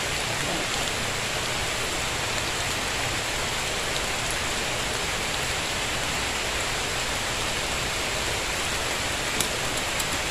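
Steady rain falling, an even hiss without a break, with a couple of small clicks near the end.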